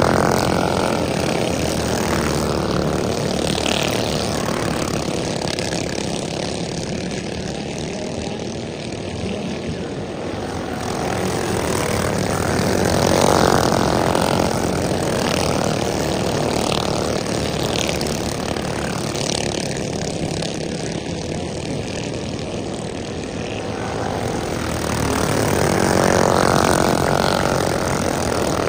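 A pack of racing go-karts running laps, their small engines sounding together in a continuous drone. The sound swells as the pack passes close by and fades as it moves away, three times, about every thirteen seconds.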